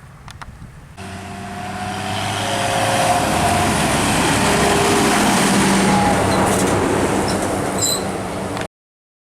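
The diesel engine of a large farm machine comes in loud and steady about a second in, growing louder as it draws close, with a few steady whining tones over it. The sound cuts off abruptly near the end.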